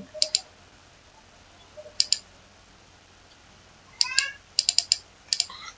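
Computer mouse clicking in short groups as spline control points are placed in CAD software, with a brief wavering high squeak about four seconds in.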